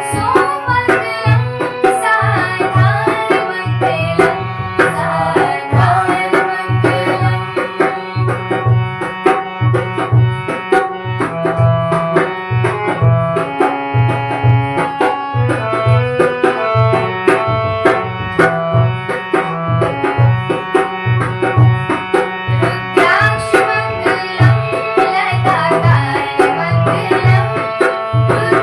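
Devotional Hindu bhajan music: a steady hand-drum beat under melodic instruments.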